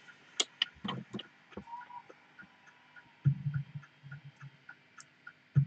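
Small wire strippers clicking and snipping as wires are worked, with a burst of rubbing and handling noise about three seconds in and a sharp click at the end. Faint regular ticking runs underneath, about three ticks a second.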